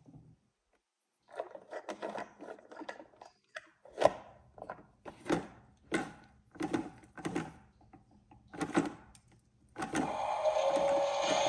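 Plastic toy garbage truck's side-loader arm worked by hand, clicking and clacking as it lifts a toy bin up to tip it into the hopper, the loudest clack about four seconds in. Near the end a steady hum with a hiss sets in.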